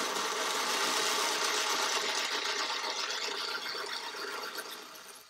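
OO gauge model locomotive (an OO Works Adams Jubilee 0-4-2) running at full speed on a rolling road: a steady whirring rattle of motor, gears and wheels on the rollers. Much of the noise comes from the heavy, unsprung locomotive pressing down onto rollers with no underbase. The noise fades away near the end as the locomotive is lifted off the rollers.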